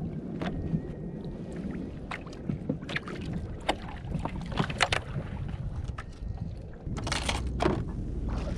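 Wind on the microphone and water noise aboard a fishing kayak, with scattered light clicks and knocks and a short rush of noise about seven seconds in.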